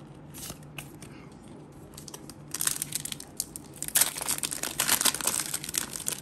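Foil wrapper of a Pokémon trading card booster pack crinkling and tearing as it is ripped open by hand. The crackle starts about two and a half seconds in and is loudest near the end.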